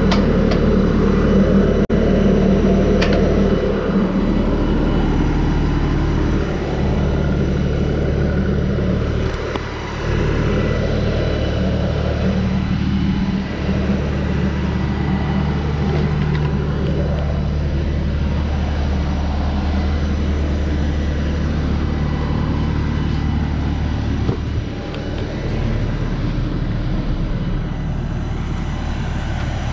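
Diesel engine of a 42 hp LS compact tractor running steadily at idle.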